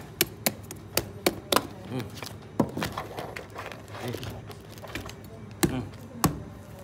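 A knife striking a durian's woody stem and spiky husk: a quick run of sharp knocks in the first second and a half, a single knock about two and a half seconds in, and two more near the end.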